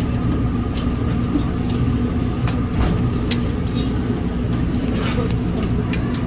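Steady low mechanical rumble with a hum, over which metal tongs click a few times against the grill grate as grilled fish are lifted onto a plate.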